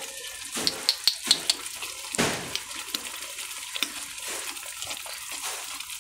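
Silicone spatula stirring a thick, wet carrot-and-cornflour muscat mixture in a non-stick pan, a steady sticky squelching with a few sharp clicks about a second in.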